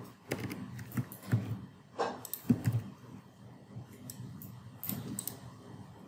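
Scattered clicks of a computer mouse and keyboard keys, a few separate sharp taps spread irregularly.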